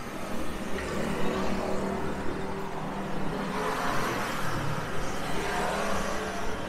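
Road traffic running by, with one vehicle passing close: its sound swells about four seconds in and fades soon after.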